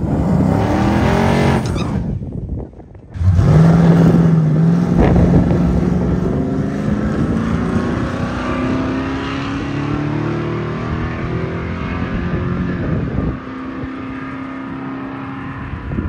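Car engine running, then after a brief cut a car engine under way, its pitch climbing slowly and steadily for about ten seconds before it eases off near the end.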